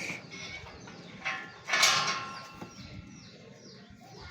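A harsh creaking scrape about two seconds in, with a smaller one just before it, over a bird chirping again and again in short falling notes.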